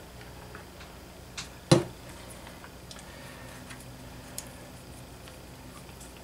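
Small metal engine parts handled by hand: a few faint ticks and one sharp click about a second and a half in, over a low steady hum.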